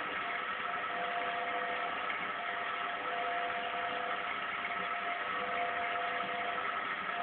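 Indesit WIL105 washing machine running early in a quick synthetics wash: a steady hiss with a faint whine held on a few even tones.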